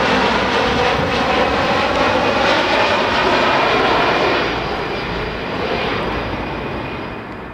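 Airliner passing low overhead, its engine noise loud for about four seconds and then fading away.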